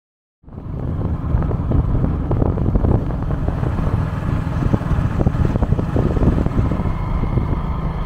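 Wind buffeting the microphone over the steady noise of a moving vehicle, starting abruptly about half a second in.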